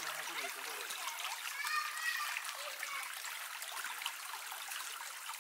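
Fast-flowing mountain stream running, a steady rush of water.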